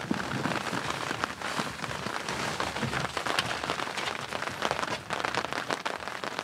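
Steady rain pattering, with many separate drops ticking on nearby surfaces.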